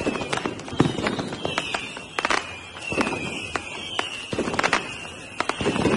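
Fireworks going off: irregular sharp bangs and crackling pops several times a second over low rumbling swells, with a wavering high whistle running through.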